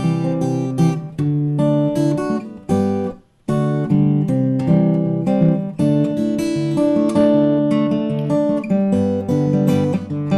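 Acoustic guitar strumming chords with no singing, stopping short for a moment about three seconds in before the strumming picks up again.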